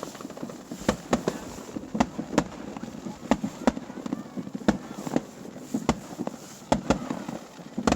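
Fireworks display bursting in an irregular run of sharp bangs, about two a second, some close together and some spaced apart.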